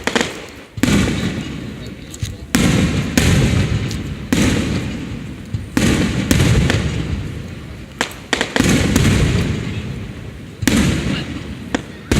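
Fireworks shells bursting overhead, about nine loud booms in a row, each dying away in a long low rumbling echo, with small sharp pops in between.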